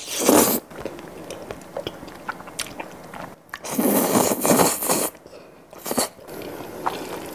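Close-miked slurping of creamy pasta noodles, with wet chewing. A short slurp comes right at the start and a longer, louder one from about three and a half to five seconds in.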